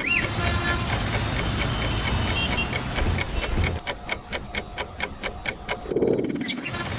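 Rapid, even ticking, about five ticks a second, over a low rumble like passing traffic that drops away about four seconds in.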